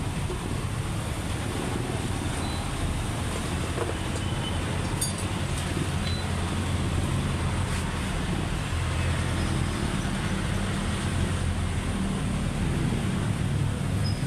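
Steady low rumble of motor-vehicle engines, like passing road traffic, with a few faint clicks.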